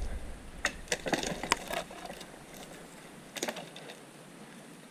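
A few sharp snaps and crackles of dry twigs and crusted snow, about five close together in the first two seconds and one more about three and a half seconds in, over faint wind rumble that dies away.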